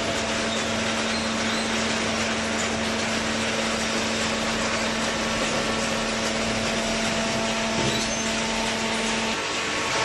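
Hydraulic cardboard baler running: a steady machine noise with a constant hum that drops out shortly before the end.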